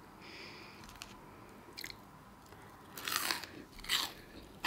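Close-miked eating: a person chewing crunchy food, with two louder crunchy bites about three and four seconds in.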